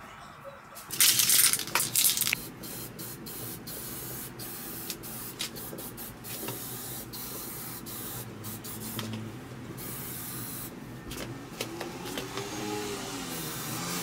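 Aerosol spray-paint can spraying. It gives a few loud blasts about a second in, then a steadier hiss broken by many short pauses as the nozzle is pressed and released.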